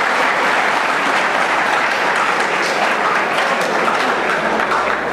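A large audience of students applauding, dense steady clapping.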